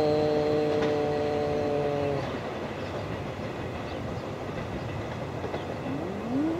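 A train's air horn sounds one steady chord for about two seconds and then cuts off, leaving the rumble of a train.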